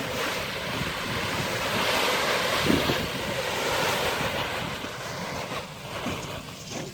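Steady rushing noise of a rice combine harvester at work, mixed with wind on the microphone; it swells about two seconds in and eases off after four.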